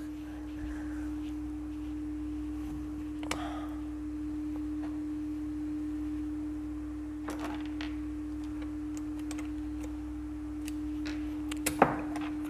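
A few sharp metallic clicks and taps of small engine parts and tools being handled during motorcycle engine assembly, the sharpest near the end, over a steady humming tone.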